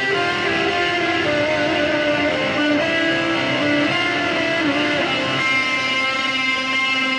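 Solo electric guitar played through an amplifier stack, picking out a melody of held notes. About five seconds in it settles on one long sustained note that rings on.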